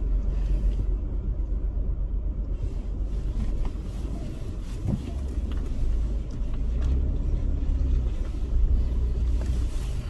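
Car engine running and tyres rolling over a grass and dirt track, heard from inside the cabin as the car starts back up a slope: a steady low rumble.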